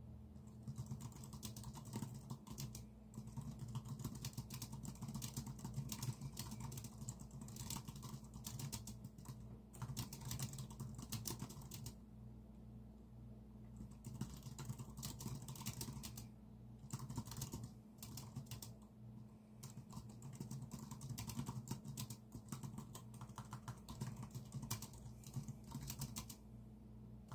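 Typing on a computer keyboard: fast runs of key clicks broken by short pauses, the longest a couple of seconds about twelve seconds in. A low steady hum runs underneath.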